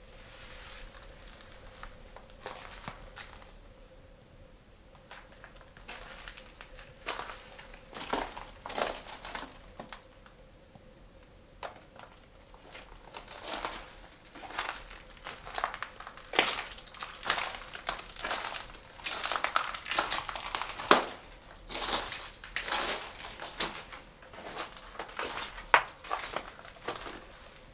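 Footsteps crunching and scraping over rubble, plaster and broken tiles on a concrete floor in a small, enclosed concrete space: irregular at first, then denser and louder from about halfway through.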